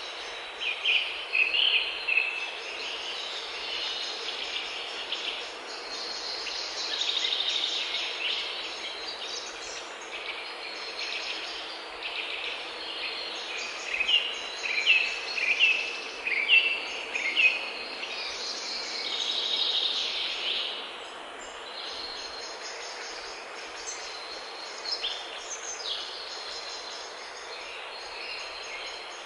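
Forest birdsong: several small songbirds singing over an even background hiss. About half-way through comes a run of five loud, clear notes about a second apart.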